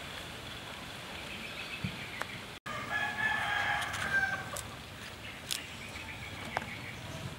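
A rooster crowing once, about three seconds in, a pitched call lasting a second and a half, right after a brief dropout in the sound. A steady high-pitched background runs beneath, with a few light clicks later on.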